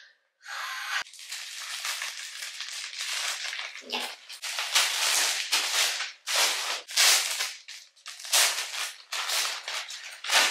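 Plastic packaging being handled: a poly mailer bag torn open and a clear plastic bag crinkling as clothing is unwrapped, in loud, irregular rustles that begin about half a second in.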